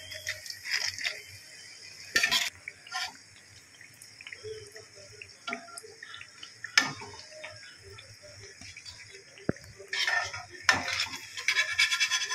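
Fish fillets frying in hot oil in a kadhai with a faint steady sizzle, while a perforated metal slotted spoon scrapes and clinks against the pan as the fried pieces are lifted out. The scraping comes in short bursts about two seconds in and more densely near the end.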